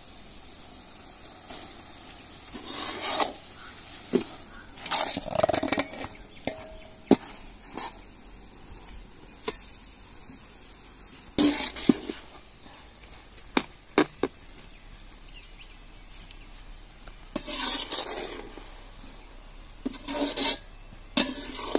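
Metal ladle scooping cooked rice into a large metal pan and stirring it through, giving irregular scrapes and several sharp clinks of metal on metal.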